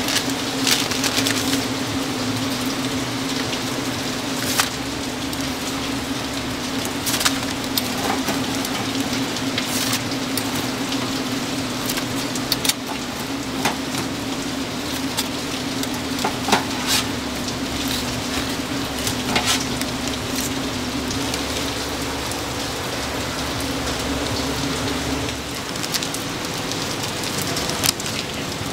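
Taiwanese sweet potato balls deep-frying in hot oil: a steady sizzle with scattered crackles and pops, over a steady low hum.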